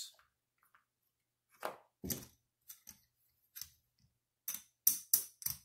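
Casino chips clicking against one another as they are picked out of a chip tray and stacked: a scatter of sharp clicks, coming quicker near the end.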